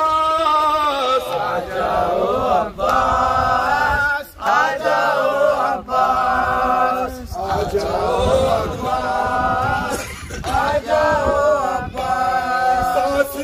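A nauha, the Shia mourning lament, chanted by a man into a handheld microphone, with several voices sounding together. It comes in long held lines broken by short pauses.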